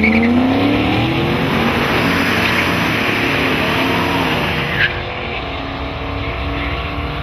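A drag race launch: a late-model Ford Mustang and a classic muscle car pull away from the start line at full throttle, their engines rising in pitch through the gears. The engine sound grows fainter after about five seconds as the cars run down the track.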